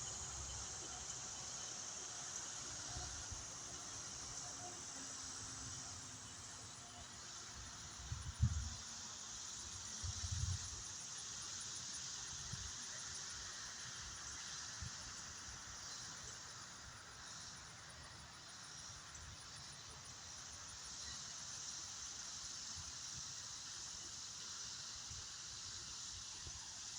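Tornado warning siren faintly winding down, its falling tone sinking slowly for about ten seconds before it fades out, over a steady high hiss. Two short thumps come about eight and ten seconds in.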